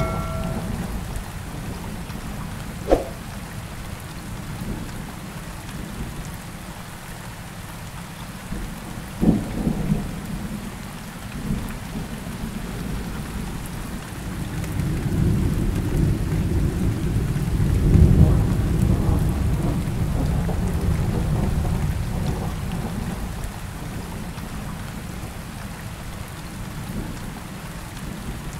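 A rain-and-thunderstorm sound track: steady rain with low thunder rumbling throughout. There is a sharp crack about three seconds in and another about nine seconds in, and a long, louder rumble builds and fades between about 14 and 22 seconds.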